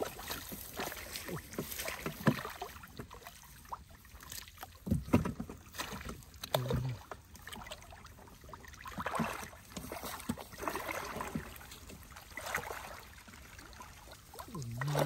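Muddy water sloshing and splashing irregularly as hands and arms grope through the mud of a shallow ditch for fish.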